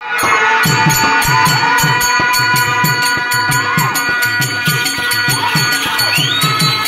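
Live folk-theatre accompaniment: a hand drum beats a steady rhythm of about three strokes a second, its low strokes sliding down in pitch, over steady held reed-organ tones, with jingling metal ticks on each beat.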